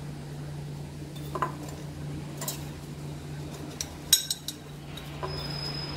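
A utensil knocking and scraping against the inside of a glass jar as salted lemon quarters are pressed down into it. There are a few separate clinks, the sharpest cluster about four seconds in, over a steady low hum.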